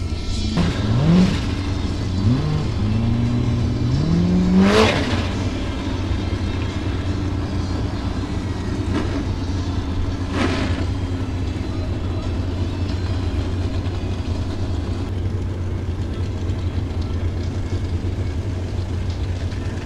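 Formula Offroad buggy engine revving hard in a series of rising and falling surges, climbing to a high peak about five seconds in, then settling into a steady low engine drone.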